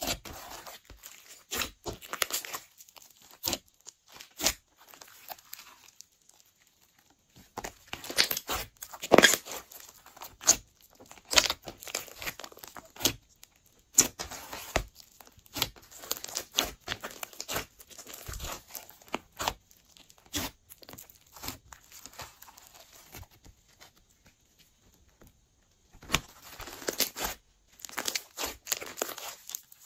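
Hands kneading, pressing and stretching glossy slime, making irregular sticky clicks, pops and squelches, with two short lulls.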